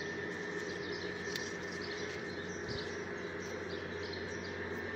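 Outdoor garden ambience: a steady low hum with a steady higher tone, and faint, scattered short high chirps.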